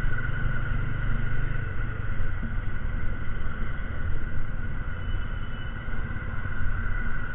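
TVS Apache RTR 200 4V's single-cylinder engine running while the motorcycle rides and slows in traffic. Wind and road rumble sit underneath, with a steady high whine over them; the low rumble eases about two seconds in.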